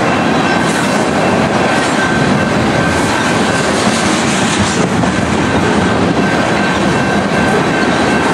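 Freight train of tank cars rolling past close by: a loud, steady rumble and rattle of steel wheels on rail, with a thin steady high-pitched ring running through it.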